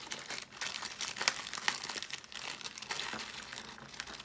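Clear plastic packet of metal miniatures crinkling and crackling as it is handled, in a run of irregular sharp crackles.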